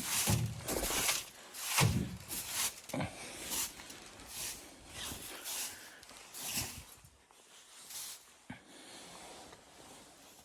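Footsteps crunching in snow at a walking pace, each step a short crunch. The steps grow fewer and fainter in the last few seconds.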